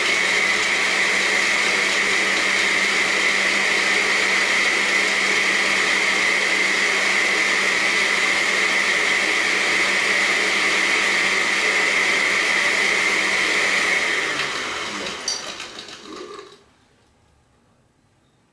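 Countertop blender motor running steadily with a steady high whine, blending ice cubes with cold coffee, pisco, sugar and egg white into a frothy cocktail. About three-quarters of the way through, the motor winds down and stops.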